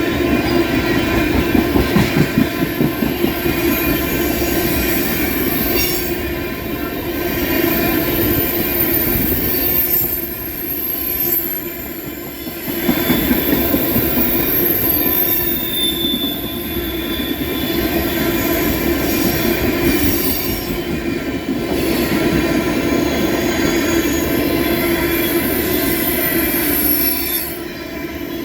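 Freight train of empty ethanol tank cars rolling past, its steel wheels squealing high on the rails. Rhythmic clacking over the rail joints is strongest in the first few seconds.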